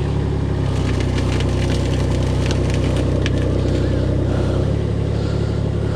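Engine of a machine lifting a heavy load running steadily, its note changing about half a second in and settling back near the end as the load is raised higher. A few light clanks sound in the middle.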